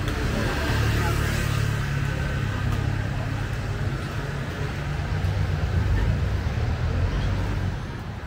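A motor vehicle's engine running close by: a steady low rumble that swells about a second in and again between about five and seven seconds in.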